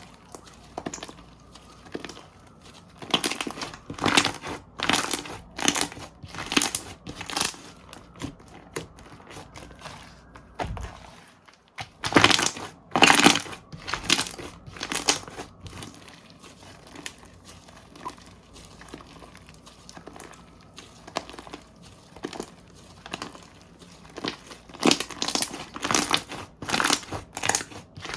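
Slime being squeezed and pressed by hand, a run of short squishy, crinkly strokes about one or two a second. They come in three louder spells with softer handling between.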